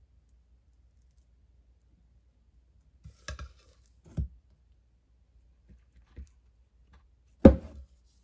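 Silicone spatula scraping and tapping soap mixture out of a glass measuring cup, a few short knocks about three and four seconds in. A louder knock near the end as the glass cup is set down on the countertop.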